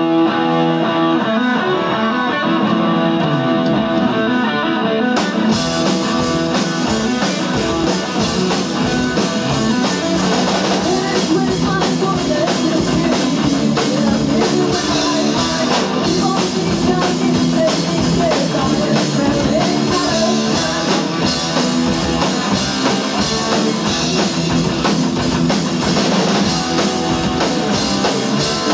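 Live rock band playing on stage: electric guitars, bass and drum kit, with a female singer. About five seconds in the cymbals come in and the band plays at full force.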